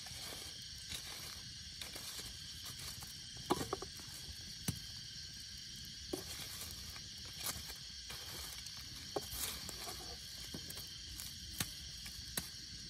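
Steady high-pitched hiss with scattered light clicks and rustles, the most distinct a small cluster about three and a half seconds in.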